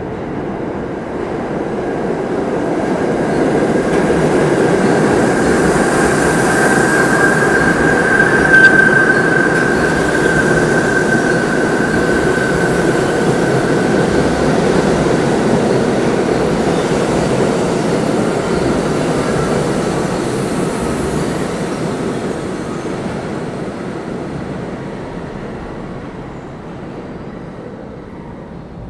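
New York City subway express train running through the station without stopping. The rumble of steel wheels on rails builds over the first few seconds, peaks, then slowly fades as the train leaves. Around the loudest part a wheel squeal holds one steady high pitch.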